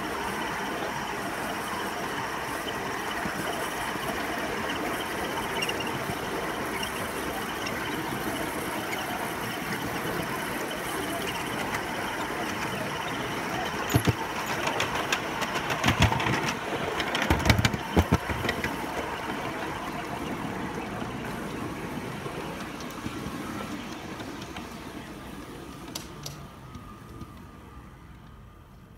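Ride-on 3.5-inch gauge garden railway train running along newly laid, not yet fixed track: a steady noise of wheels rolling on the rails, with a cluster of sharp clacks about halfway through and another near the end. The sound fades as the train slows toward a stop.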